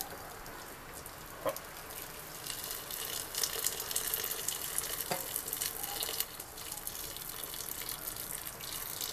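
Boiling water poured in a steady stream from a kettle into a pressure cooker, splashing into the liquid already in the pot; the pour gets louder a couple of seconds in. A light knock about a second and a half in.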